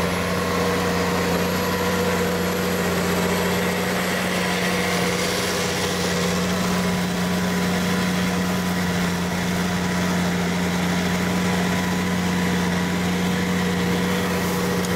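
Case IH Magnum 310 tractor engine running at a steady, unchanging drone under load while pulling a subsoiler through the ground.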